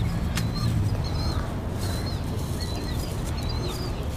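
A bird chirping repeatedly, short high chirps every half second or so with a gap in the first second, over a steady low rumble. A single sharp click sounds about half a second in.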